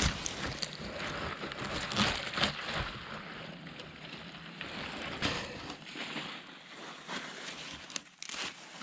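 Rustling of tall grass and burdock leaves as a burdock flower stalk is cut with shears and pulled out by hand, with a few sharp clicks.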